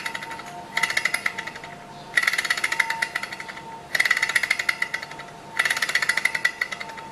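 Small walking-beam gamma Stirling engine running and rattling in rapid clattering bursts about a second long that come and go every second or two. The model vibrates badly, which the owner puts down to an out-of-balance flywheel.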